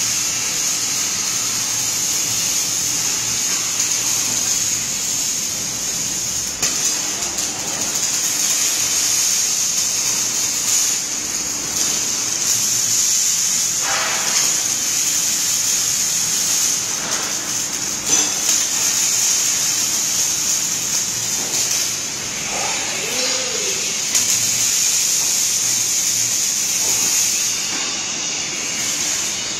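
Robotic arc welding: the welding robot's torch lays a weld on a steel frame, a steady hiss.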